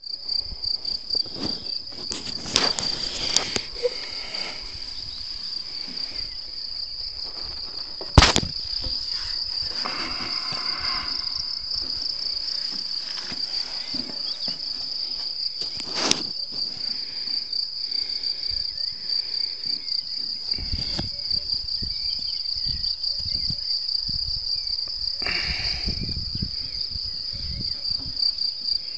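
Meadow insects trilling in one continuous high, pulsing chorus. A few sharp clicks cut across it, the loudest about eight seconds in, with brief rustling later on.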